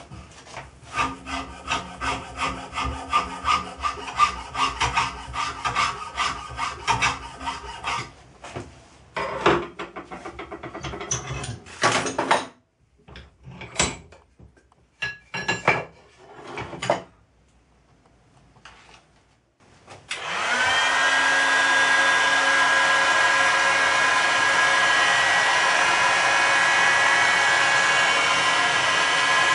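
Hand file rasping on a metal strip clamped in a bench vise, in quick rhythmic strokes. Then a scattering of sharp knocks as the strip is worked over in the vise with a wooden block. About twenty seconds in, a hot air gun switches on, spins up and runs steadily with a high whine, heating a metal plate to soften its adhesive.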